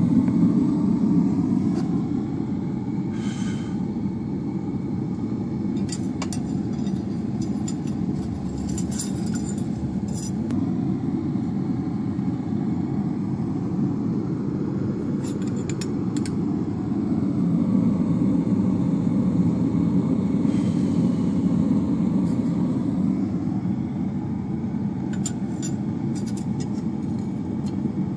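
A steady, low, rumbling hum of running machinery, with a few light metal clinks scattered through it as the hot knife tang and tongs are handled.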